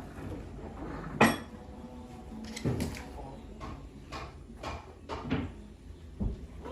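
Scattered knocks and clatter, a few short ones spread out, the loudest a sharp knock about a second in.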